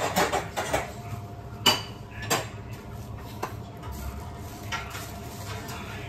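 Kitchenware being handled on a counter: a short run of clattering at the start, then a few single sharp knocks and clinks spaced about a second apart, over a steady low hum.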